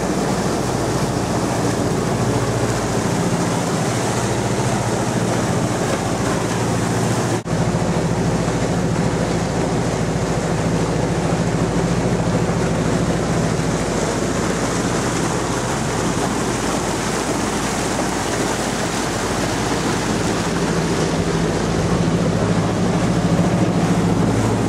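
Motor boat underway at speed: the engine's steady low drone under a constant rush of wind and water.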